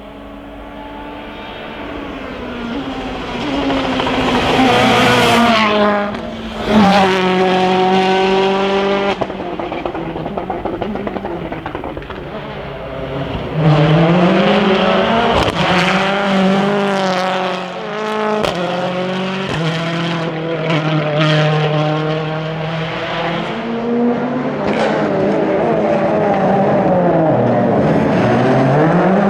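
World Rally Car engines at full race pace, revving up and dropping back again and again as they shift through the gears, with sharp cracks and bangs at the shifts and lifts.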